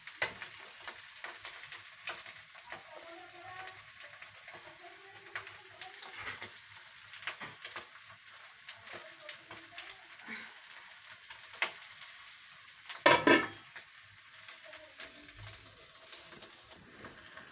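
Boiled taro (arbi) pieces frying in oil in a kadhai, sizzling steadily while a spatula stirs them and knocks against the pan now and then. A louder clatter against the pan about three-quarters of the way through.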